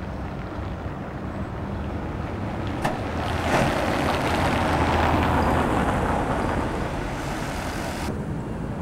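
A motor vehicle passing on a nearby road: a rushing noise that swells from about three and a half seconds in and cuts off suddenly near the end, over a low steady hum, with a single sharp click just before it.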